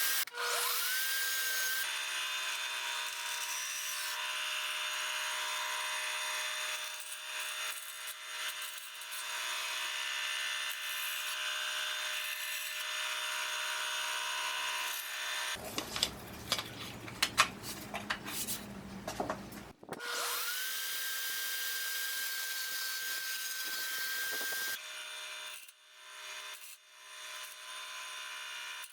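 A small high-speed power tool whose motor spins up to a steady whine and cuts, with hiss. It runs for about fifteen seconds, then after a few seconds of knocks and handling spins up again for about five seconds. Near the end come rhythmic rubbing strokes.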